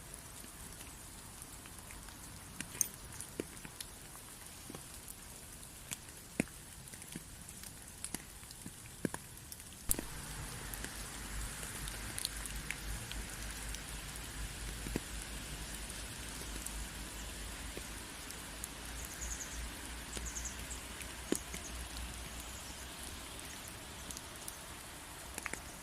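Steady rain falling, with scattered single drops tapping sharply. About ten seconds in it gets a little louder, with a low rumble underneath.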